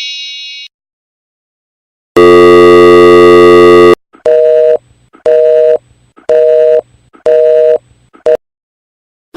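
A loud, harsh electric buzzer sounds for about two seconds, like a game-show wrong-answer buzzer. It is followed by a telephone busy signal: two-tone beeps of about half a second each, repeating roughly once a second, five times, with a clipped sixth. At the very start the ringing tail of the previous effect fades out.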